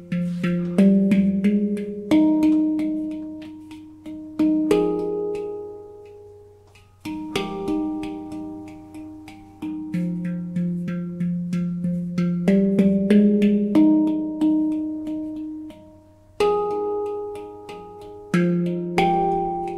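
Nitrided steel handpan in the F Pygmy scale, ten notes, played by hand: notes struck one after another in phrases, each ringing on and fading, with quick light finger taps between them. The playing thins out twice, letting the notes die away before the next phrase.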